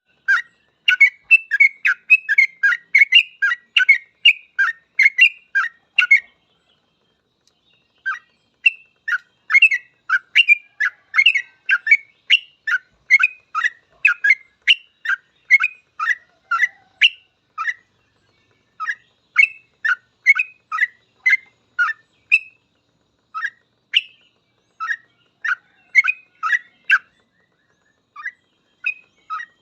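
Yellow-vented bulbul (trucuk) singing a fast, continuous run of short chirping notes, about two to three a second, with a pause of about two seconds early on.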